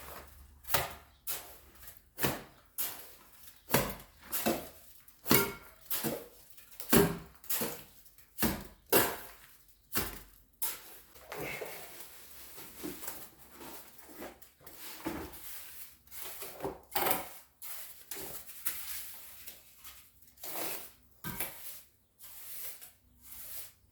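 Steel masonry trowel clinking and scraping as mortar is worked for a window sill, an irregular run of sharp metallic knocks about one or two a second with scraping between.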